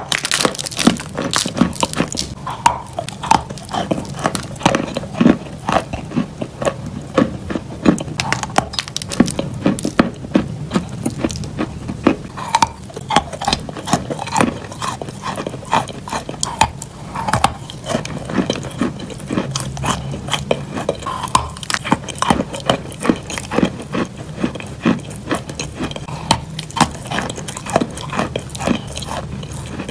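Close-miked biting and chewing of thick sticks of pressed edible chalk: a dense, irregular run of crisp crunches and cracks, several a second.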